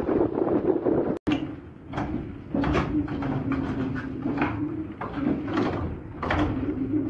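Wind buffeting the microphone under turning windmill sails, then, after a cut about a second in, the wooden machinery inside the windmill running: a steady low hum with irregular wooden knocks and clatters every half second or so.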